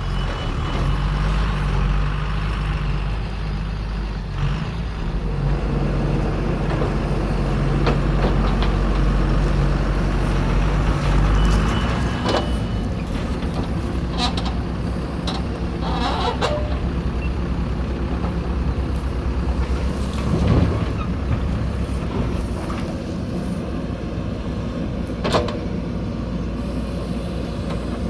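Diesel engine of a JCB backhoe loader running steadily, its note changing about twelve seconds in, with several sharp knocks scattered through.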